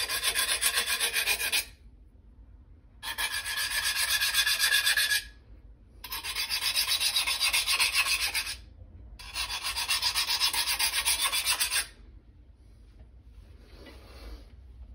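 Hand file rasping rapidly along the steel edge of a VG1 Santoku knife in four spells of two to three seconds each, with short pauses between. The edge is being deliberately dulled before sharpening.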